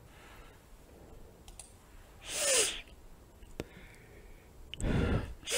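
A quiet pause broken by two short breaths, one about two and a half seconds in and a stronger one near the end, with a faint mouth click between them.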